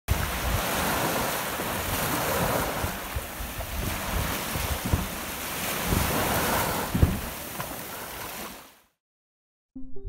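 Small waves breaking and washing up on a sandy shore, the wash swelling and ebbing, with wind buffeting the microphone. The sound fades out near the end.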